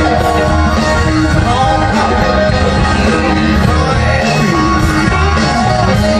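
Live funk-rock band playing with drums, electric guitar, keyboards and trombone, with the trombone carrying the melody instead of a voice.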